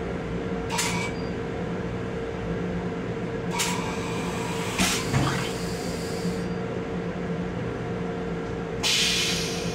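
Steady running hum and rumble of an MTA Long Island Rail Road M7 electric railcar, heard inside its small restroom, with a held tone in it. Four brief hissing sounds break through; the last, near the end, lasts about a second.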